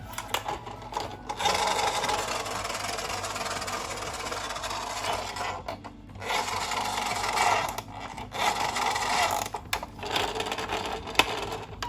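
Toy ambulance minicar rolling along a surface: a rubbing, scraping noise in four spells with short breaks, after a few clicks at the start.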